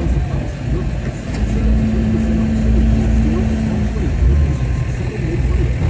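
Off-road Jeep engines running with a steady low rumble: the Jeep waiting in line idles while a lifted Jeep ahead crawls over a rock-and-mud obstacle. A steady hum comes in about a second and a half in and stops about two and a half seconds later.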